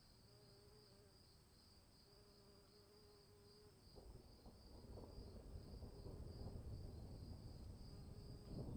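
Crickets chirping steadily in a high, even pulse, while a low rumble of distant thunder builds from about halfway through and swells loudly right at the end.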